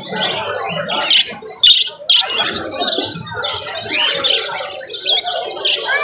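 A crowd of caged budgerigars chattering, with dense high chirps and warbles throughout. A few sharp, loud squawks come between one and two seconds in.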